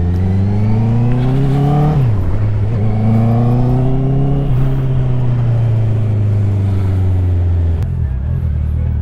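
Honda CBR650 inline-four motorcycle engine and exhaust accelerating under throttle. The revs climb, drop sharply about two seconds in, then climb again; after that they fall slowly as the throttle closes and settle to an idle near the end. The engine is loud throughout.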